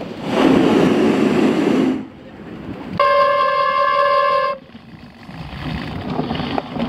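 Wind rushing over the microphone for the first two seconds, then rain-wet bicycle brakes squealing in one steady high tone for about a second and a half before cutting off.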